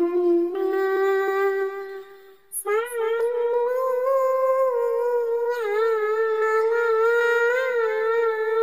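A high voice singing a sholawat (Islamic devotional song) melody in long held notes: a short phrase stepping slightly up, a brief break about two and a half seconds in, then one long note with a wavering pitch.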